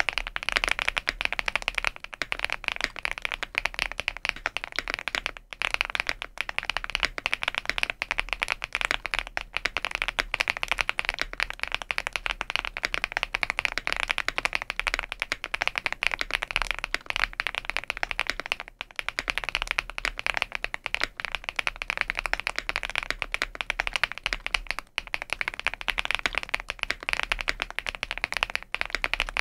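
Fast, continuous typing on an Epomaker V75 Plus gasket-mount mechanical keyboard with a PC plate, full foam, HMX Wave switches and GMK Hamong keycaps, wired to a wireless dongle. A dense, steady stream of key clacks with only a few brief pauses.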